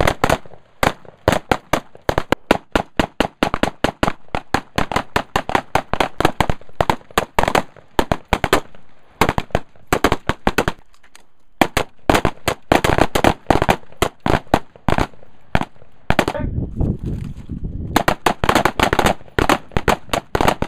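AR-15 rifles firing in rapid strings of sharp shots, several a second, broken by a couple of brief pauses about halfway through.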